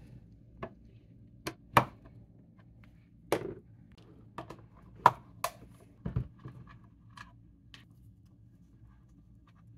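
Screwdriver taking out the T10 security Torx screws on a Kobalt 80V battery pack's plastic faceplate: scattered clicks and knocks of the driver and the hard plastic case being handled, the sharpest about two and five seconds in.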